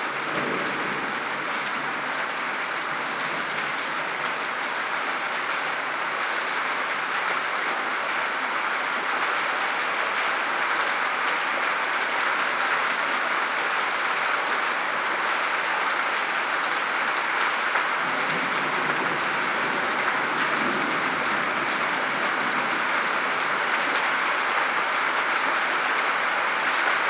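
Hailstorm: hail and heavy rain pelting down in a dense, steady hiss, growing slightly heavier toward the end.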